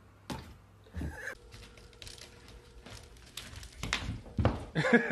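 A few dull thumps and light taps in a small room. Near the end, a beat of regular drum strikes starts.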